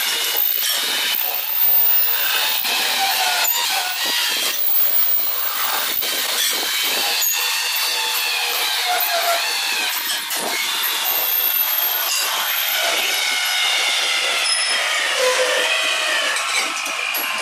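Metal lathe turning a metal tractor pin, the cutting tool giving off a high, wavering squeal with occasional clicks and knocks.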